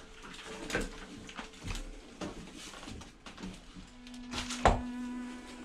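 Footsteps and knocks of a person climbing debris-strewn wooden stairs, scattered clatter of junk and boards underfoot, with one loud thump about four and a half seconds in.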